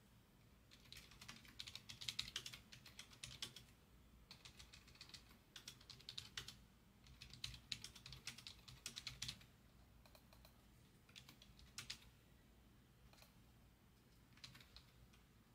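Faint typing on a computer keyboard: quick runs of keystrokes for most of the first ten seconds, then only a few scattered key presses.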